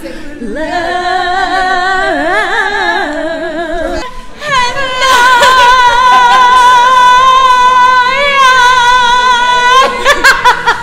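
A woman singing unaccompanied, wavering up and down, then holding one loud high note with vibrato for about five seconds. The note breaks off into laughter near the end.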